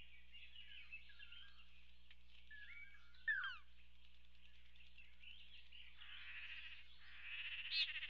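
Lance-tailed manakins calling: short whistled chirps and notes sliding downward, the loudest about three seconds in. In the last two seconds a dense, buzzy, fast-pulsing call builds as two males start their courtship display in front of a female.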